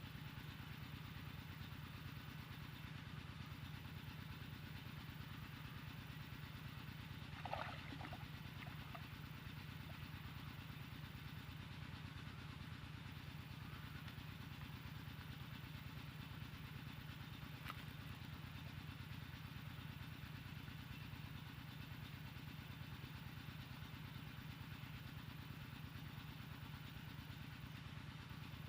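A small engine running steadily at low speed, with a short higher-pitched sound about seven and a half seconds in.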